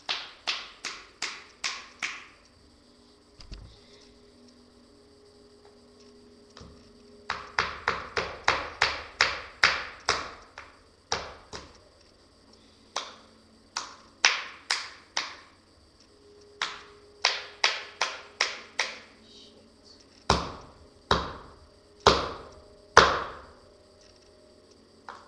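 Hammer striking a screwdriver into a battery's casing, in quick runs of sharp blows about three a second with short pauses between runs. Near the end come four heavier, more widely spaced blows.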